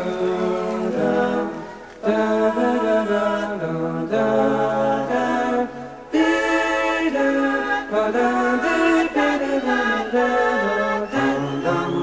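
Several voices singing wordless harmonies, holding long chord-like notes that move in steps, in phrases that break off briefly about 2 and 6 seconds in.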